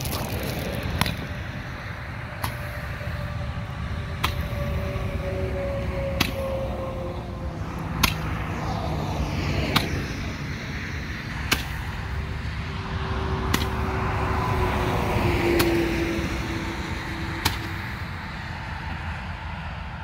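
A Roman candle firing, about ten sharp pops at a steady pace of roughly one every two seconds as each ball shoots up.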